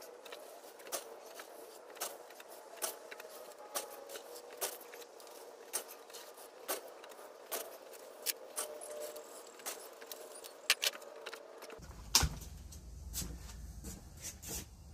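Small hard clicks and rattles of gravelly bonsai soil (red river rock) being handled and worked into a ceramic pot around the roots, coming irregularly about once or twice a second over a faint steady hum.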